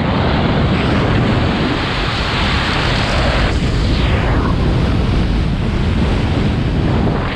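Loud, steady wind rush over the camera microphone as a skydiver flies a parachute canopy down on the final approach over grass.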